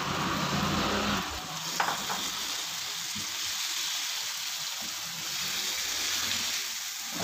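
Vinegar-marinated chicken strips dropped into hot oil with softened chopped onion in a nonstick frying pan, sizzling steadily. A silicone spatula stirs and spreads them, with a few light taps and scrapes.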